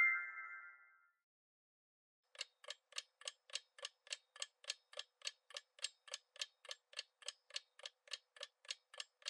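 Clock-tick sound effect of a quiz countdown timer: faint, evenly spaced ticks, about three and a half a second, starting a couple of seconds in, after a short chime has faded out.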